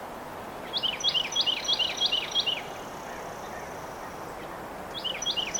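A songbird singing a rapid run of repeated two-note chirps for about two seconds, then starting the same run again near the end, over a steady outdoor hiss.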